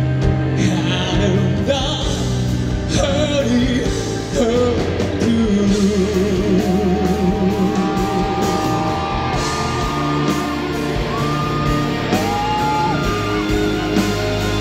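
Live rock band music with singing. The melody shakes with a wide vibrato, then moves into long held notes over the band's sustained backing.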